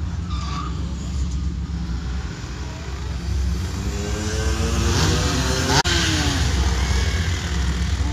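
Car engines rumbling low and steadily as cars cruise along the street. About five seconds in, one car passes close, its engine note rising and then falling as it goes by. There is a short sharp click near its loudest point.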